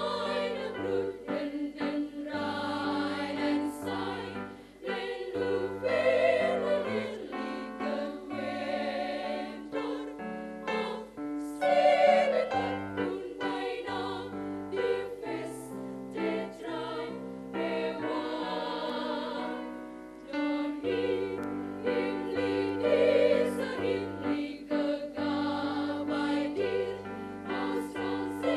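Choir of young women's voices singing in harmony, with held low notes underneath.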